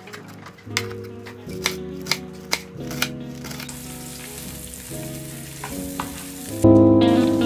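Food frying in hot oil: a sizzling hiss that comes in about three seconds in, under background music, with a few light clicks in the first three seconds. The music gets much louder near the end.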